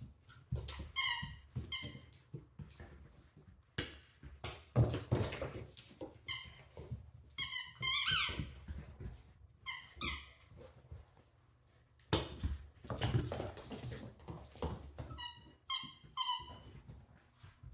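A dog playing with a squeaky toy: short high squeaks, a pair about a second in and a quick run of several near the end, between noisy scuffling and chewing sounds.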